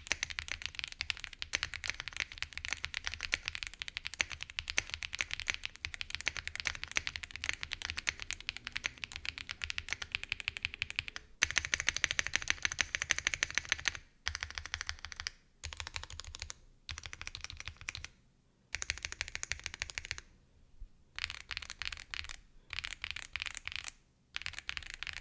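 Meletrix Zoom TKL mechanical keyboard being typed on. It has pre-lubed Wuque Studio switches under PBT keycaps on a polycarbonate plate, and is gasket-mounted with poron dampeners. A dense run of fast keystrokes breaks up about halfway through into short runs of clicks with pauses between them.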